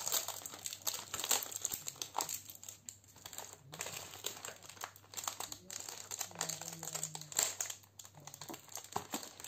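Crinkling and crackling of a clear plastic cookie tub and its wrapping being handled and opened by hand, in irregular sharp crackles throughout.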